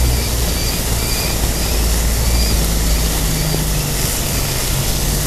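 Beef sizzling on a hot stone slab, a steady hiss, over a low rumble. A bird chirps repeatedly through the first half.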